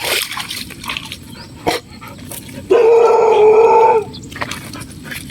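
A dog howling one steady, held note about 1.3 s long in the middle, with a couple of sharp knocks before it.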